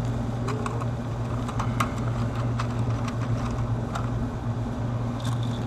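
A steady low machine hum, with scattered light clicks and taps from hand tools working on wiring and terminals.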